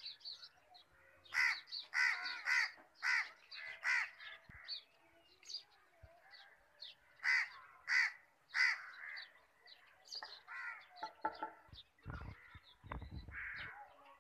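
Crows cawing in runs of short, loud calls, with smaller birds chirping faintly between them. Low thumps near the end.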